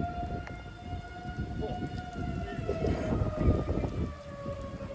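Outdoor tornado warning siren wailing on one held tone that slowly drops in pitch in the second half, over heavy wind rumble on the microphone that peaks in a strong gust about three and a half seconds in.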